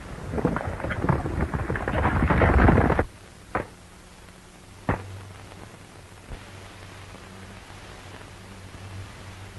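Horses galloping: a dense, loud clatter of hoofbeats that cuts off suddenly about three seconds in. Then two axe chops into wood, about a second and a half apart, over the steady low hum of an old film soundtrack.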